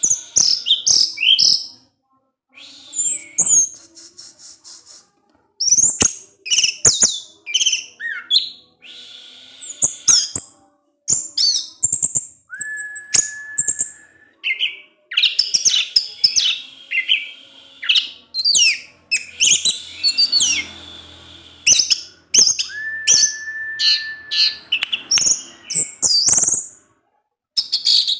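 Orange-headed thrush (anis merah) singing a fast, varied song of quick high phrases with sharp clicks mixed in, broken by short pauses and by two long, steady, lower whistles.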